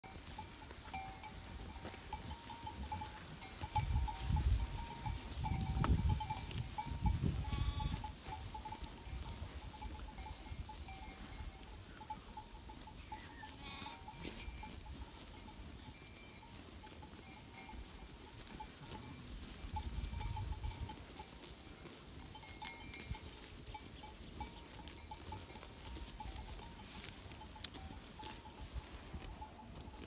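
Bells on a grazing flock of sheep ringing and clinking on and off, with a few low rumbles in the first third and again about two-thirds through.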